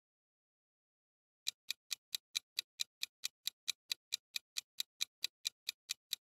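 Clock-like ticking sound effect of a quiz countdown timer, even ticks about four and a half a second, starting about a second and a half in after silence.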